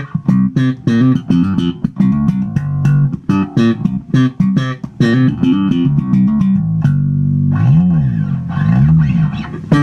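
Electric bass guitar played slap style, with quick thumped and popped notes through a compressor pedal that evens out the pops. Near the end the player slides a note up and back down twice.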